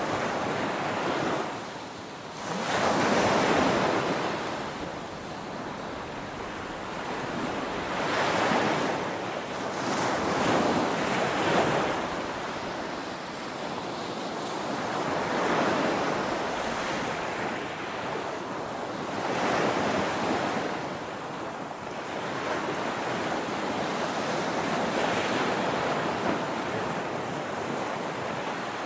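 Small waves breaking and washing up a sandy beach, the surf swelling and falling back every few seconds.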